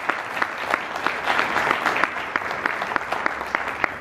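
An audience applauding, with one person's sharp claps standing out about three times a second over the steady clapping of the room.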